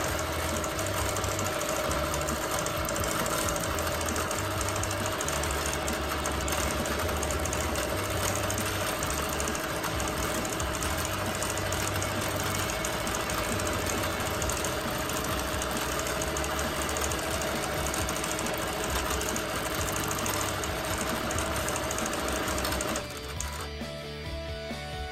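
Bernina Q24 longarm quilting machine stitching steadily, its motor and needle running as a fast even chatter. It stops about 23 seconds in, and music begins.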